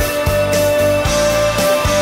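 Background music: a rock-style song with a long note held through it.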